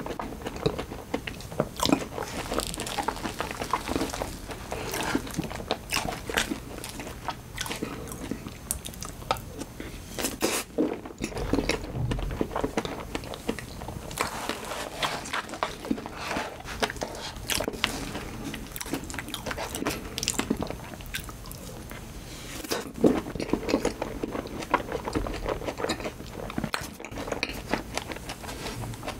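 Close-miked chewing and mouth sounds of eating soft, milk-soaked strawberry cheesecake with a crumb topping: a dense run of small irregular clicks and smacks. A wooden spoon scoops from a plastic tub now and then.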